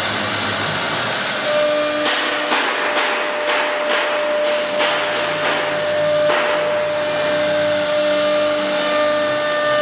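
A 1325 CNC wood router's spindle runs with a steady whine while the bit cuts wood, making a continuous noisy cutting sound. From about two to six seconds in, a run of short cutting strokes comes about two a second.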